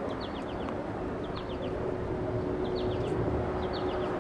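Steady outdoor background noise with a low, even hum. Over it a bird repeats a short phrase of three or four quick, falling chirps, about once every second or so.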